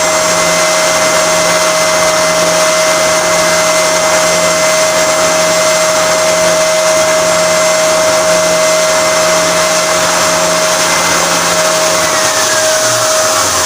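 Handheld electric power tool running steadily with a constant motor whine, carving and shaping the wooden guitar neck and headstock. A lower hum drops out near the end while the motor keeps running.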